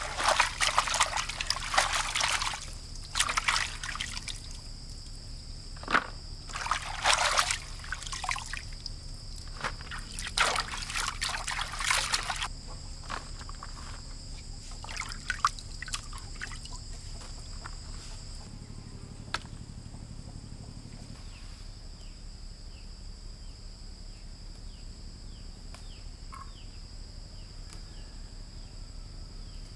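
Water trickling and sloshing in several irregular bursts over the first twelve seconds or so, over a steady high-pitched insect drone that carries on alone afterwards, with faint scattered chirps.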